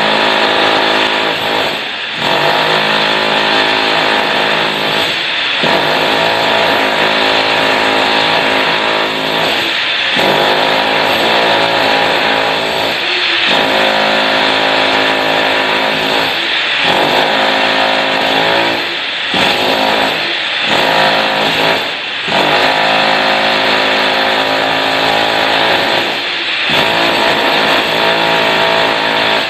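Electric demolition hammer with a chisel bit chipping up old ceramic floor tiles. It runs in long stretches with short breaks every few seconds.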